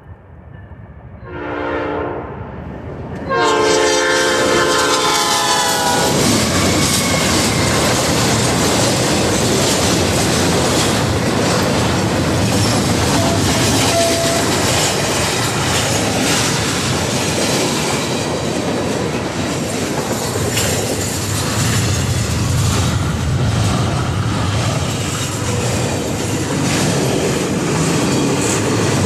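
Norfolk Southern ES44DC locomotive's Nathan P5 five-chime horn sounding a short blast, then a longer one about three seconds in that stops about six seconds in. The steady rumble and clickety-clack of double-stack intermodal cars rolling through the crossing follow.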